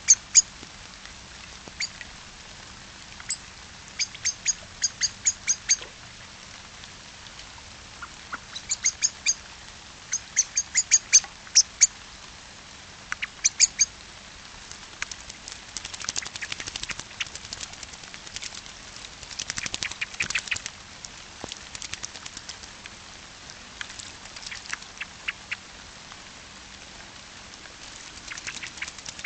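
A Eurasian blackbird bathing in a birdbath, splashing and flapping its wings in the water, over a steady hiss of light rain. Groups of quick, sharp high chirps come in short runs through the first half, and the splashing is busiest in the second half.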